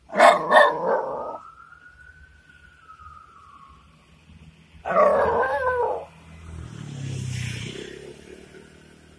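Shiba Inu barking twice in quick succession, then letting out a long high whine that rises and falls in pitch for about three seconds. About five seconds in it gives a loud, wavering bark-howl lasting about a second.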